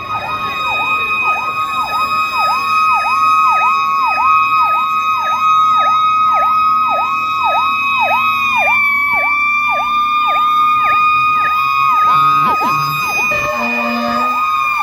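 Fire truck sirens sounding together: a fast yelp rising and falling about twice a second under a steady high wail, which dips briefly about nine seconds in.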